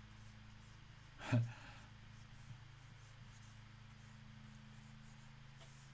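Stylus lightly scratching and tapping on a drawing tablet while sketching, faint over a low steady hum. About a second in there is a brief vocal noise from the person drawing, the loudest sound.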